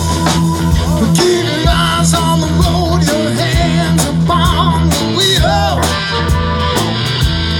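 Live rock band playing, with electric guitar out front over a steady low bass line and drums.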